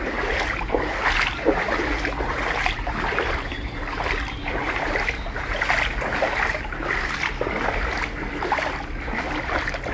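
Footsteps wading through floodwater in a street, the water sloshing and splashing at each stride.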